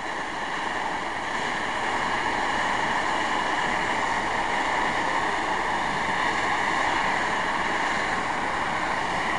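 Nickel Plate Road 765, a Lima-built 2-8-4 Berkshire steam locomotive, venting steam from the top of its boiler in a steady hiss, blowing off built-up excess pressure so the engine can cool down.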